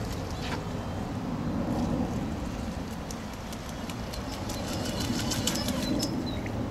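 Steady rushing of flowing river water, with a cluster of faint high ticks and small chirps about halfway through.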